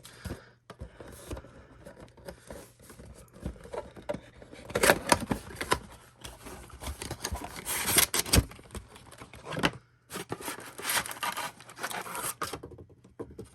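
Cardboard trading-card mega box being opened and handled, with rubbing, scraping and sharp taps as the card packs are moved; the loudest handling comes about five and eight seconds in.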